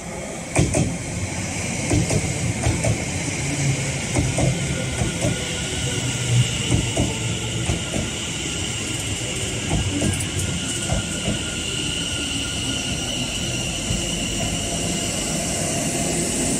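Greater Anglia electric multiple unit passing close alongside the platform, its wheels clacking over rail joints in a run of sharp clicks through the first ten seconds or so. A steady high whine joins about five seconds in.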